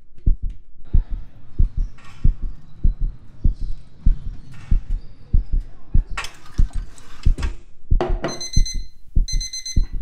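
Heartbeat sound effect: a steady, quick double thud, about a beat and a half a second, runs under the scene. A noisy swish comes about six seconds in, and two short bursts of high electronic beeping sound near the end.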